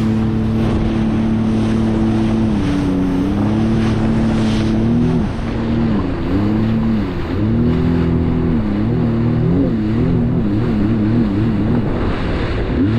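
Sea-Doo jet ski engine running at speed over choppy water, its pitch dipping and recovering several times and wavering quickly about two-thirds through, with the hiss of water spray.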